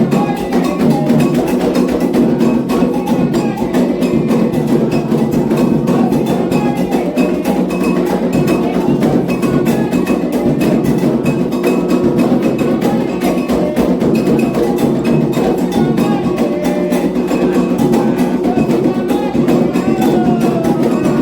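Candomblé atabaque drums playing a continuous toque for the orixás, with a struck iron bell (agogô) keeping time over the drumming.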